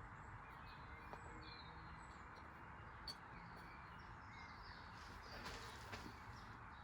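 Near silence: faint outdoor background hiss with a few short, faint bird chirps and a faint tick about three seconds in.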